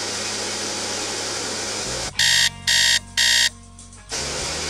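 Three loud electronic beeps in quick succession about two seconds in, each a fraction of a second long, over a steady hiss.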